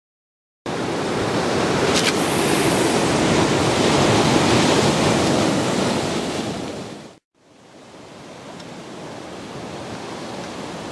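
Ocean surf breaking against a rocky shore: a steady rush of waves that starts just under a second in. It cuts out for a moment about seven seconds in and comes back softer.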